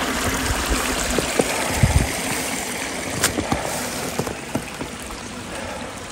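Small mountain creek running high after rain, its water rushing steadily over a rocky riffle. It grows quieter after about four seconds, and a few faint clicks are heard along the way.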